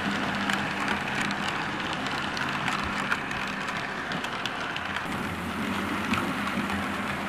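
Model railway train of a diesel locomotive and coaches running on the track: a steady rushing rumble of small wheels on rail, with many irregular clicks as the wheels cross rail joints.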